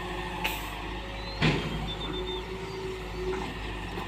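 Hitachi EX120-3 hydraulic excavator's diesel engine running steadily, with a sharp metallic knock about one and a half seconds in and a lighter one earlier.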